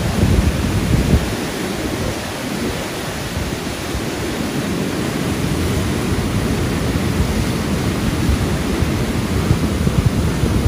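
Whitewater rapids of the Niagara River rushing loudly and steadily.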